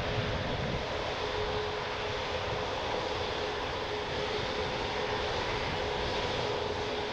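Jet airliner's turbofan engines running steadily: a broad rush of noise with a held whining tone. Wind rumbles on the microphone underneath.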